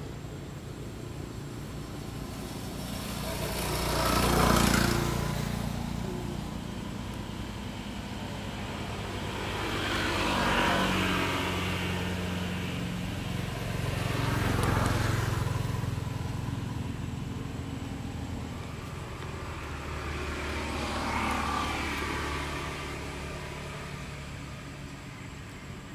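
Road traffic: four vehicles drive past one after another, each one rising and then fading over two or three seconds.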